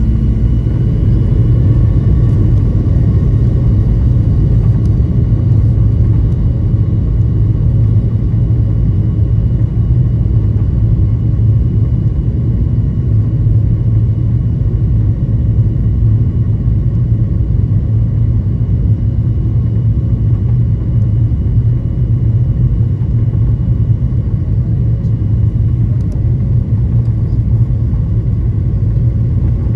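Boeing 737-900ER's CFM56-7B turbofan engines running at high thrust on takeoff and climb: a loud, steady, deep rumble with faint steady whines above it.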